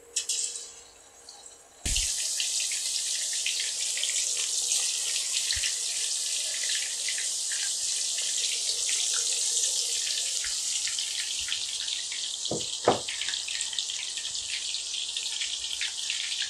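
Marinated cod pieces deep-frying in hot oil in a steel pan. A brief sizzle comes as the first piece goes in, then about two seconds in a loud, steady sizzle starts abruptly and carries on, with two short knocks about thirteen seconds in.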